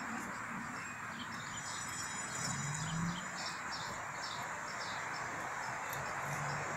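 Small birds chirping, a run of short high notes about two or three a second, over a steady hiss of outdoor background noise.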